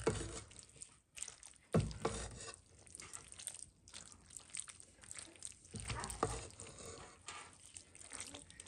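Spatula stirring fusilli pasta into a thick minced-meat sauce in a nonstick frying pan: wet squelching with irregular scrapes and taps against the pan, a few louder knocks among them.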